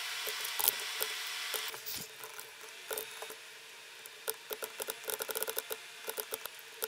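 Typing on a computer keyboard: light, irregular key clicks that come much faster from about four seconds in. A steady hiss runs under the first second and a half, then drops away.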